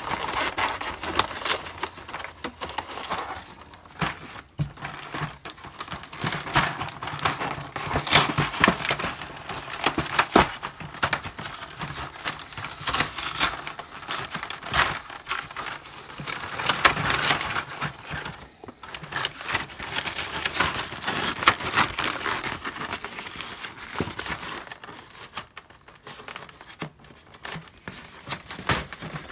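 Cardboard backing being peeled and torn off a plastic blister pack, with irregular crinkling and crackling of the packaging in bursts and short pauses.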